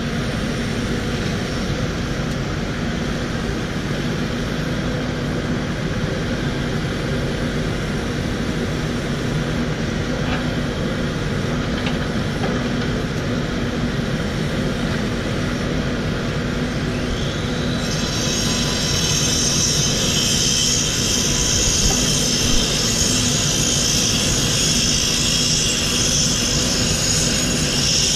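Takeuchi TB1140 tracked excavator's diesel engine running steadily under working load as its boom and bucket move. About two-thirds of the way in, a high-pitched whine rises in and holds alongside the engine.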